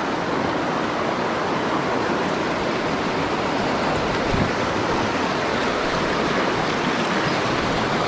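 Mountain stream water rushing over rocks in a steady, fairly loud rush.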